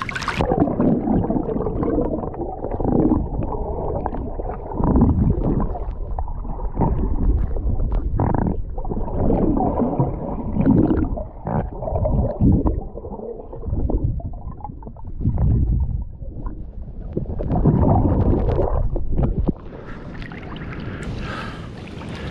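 Action camera held under water in a freshwater swimming hole: muffled gurgling and rumbling of water moving against the microphone, with uneven surges. Near the end it drops to a quieter, thinner hiss.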